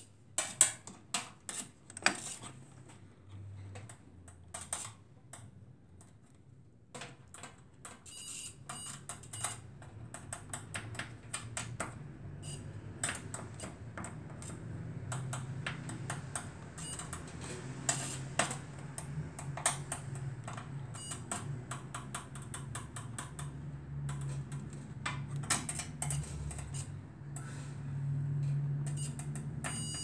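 Irregular small clicks and taps from handling multimeter test probes and the bare metal chassis and wiring of an opened microwave oven, loudest in the first few seconds, over a low hum that grows louder from about halfway through.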